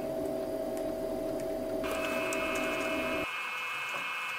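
Steady electric whine of bench rework equipment. A low tone runs with a higher whine of several tones joining about two seconds in, and the low tone drops out shortly before the end.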